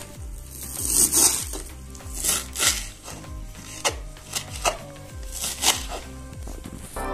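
Knife chopping fresh coriander on a wooden cutting board: a run of crisp, uneven strokes. Background music with a steady beat plays underneath.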